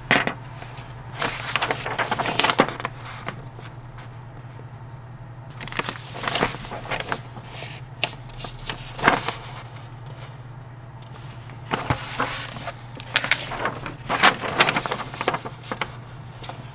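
A Tamiya model kit's paper instruction manual being handled and its pages turned, rustling and crackling in bursts every few seconds.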